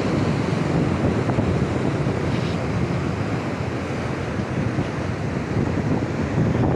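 Strong wind buffeting the microphone over the steady wash of big surf breaking against the shore.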